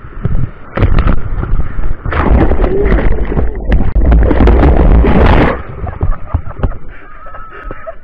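An ocean wave breaking over the camera: a first splash about a second in, then loud churning, rushing water as the camera is swamped and tumbled in the surf, easing off after about five and a half seconds.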